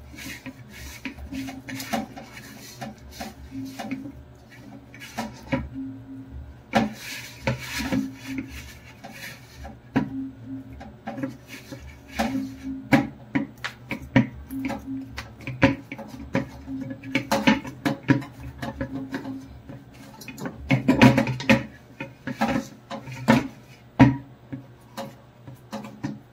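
Cooking utensils knocking and scraping irregularly against a pan or board, over a steady low hum.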